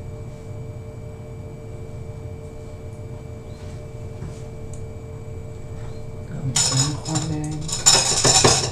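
A steady low hum, then for the last two seconds or so loud clattering of pots and dishes being handled.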